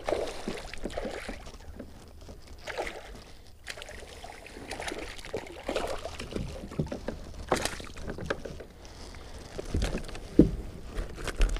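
Hooked largemouth bass thrashing and splashing at the surface beside a kayak, in irregular bursts of splashing. A few low thumps near the end as the fish is lifted aboard.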